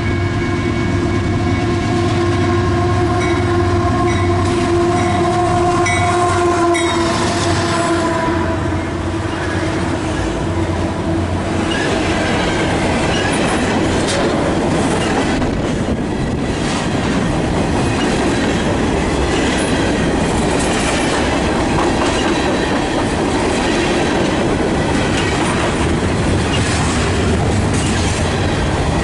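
Union Pacific diesel freight locomotive's air horn sounding a long chord that drops slightly in pitch as the locomotive passes and stops about eight seconds in. Then a train of loaded covered hopper cars rolls by, wheels clacking over the rail joints.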